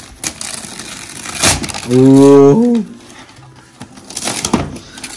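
Gift wrapping paper being torn and crumpled open, with a few sharp rips. About two seconds in, a voice lets out a long drawn-out 'ooh' that bends at its end.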